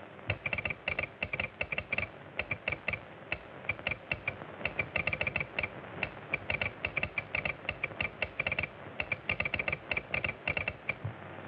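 Telegraph sounder clicking out Morse code in rapid irregular groups of sharp, slightly ringing clicks with short pauses between them.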